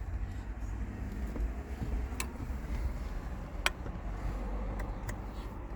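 A few sharp, light clicks, three in all, spaced over a steady low rumble; these are handling taps from working at the horn button circuit with a test lamp. The horn does not sound.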